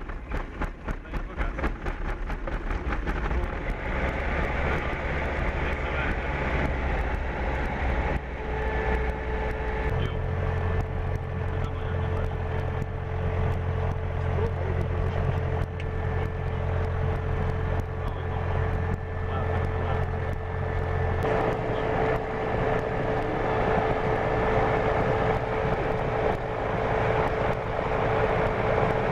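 Light aircraft's piston engine running just after a reluctant start, heard from the cockpit. It runs unevenly for the first couple of seconds, then settles into a steady idle whose note changes about ten seconds in and again about twenty seconds in.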